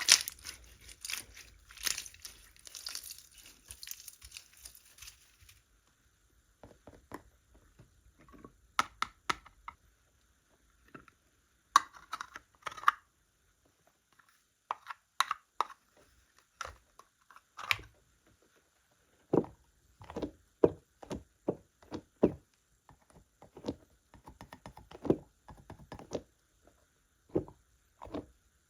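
Slime being squeezed and poked by hand, giving a dense crackling for the first five seconds or so, then separate clicks and pops that turn lower and duller in the second half.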